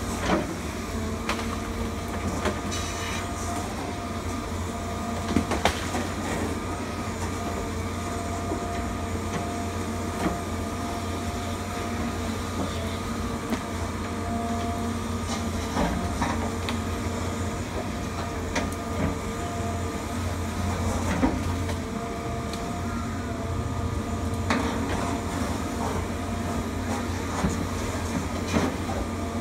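Tracked excavator working, its diesel engine running with a steady drone and a whine, with scattered sharp knocks and clanks throughout.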